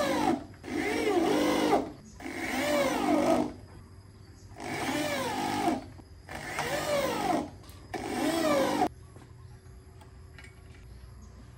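Electric drill driving screws into a subwoofer cabinet's terminal plate, run in six short bursts whose motor whine rises and falls in pitch. It stops about nine seconds in.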